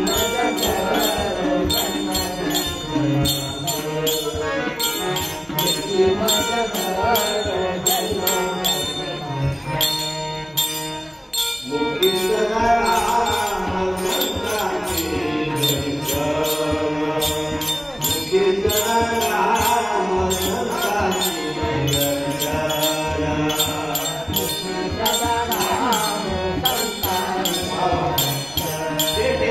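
A man singing a Marathi abhang, a devotional song, with small hand cymbals keeping a steady jingling beat. The singing breaks off briefly about eleven seconds in, then carries on.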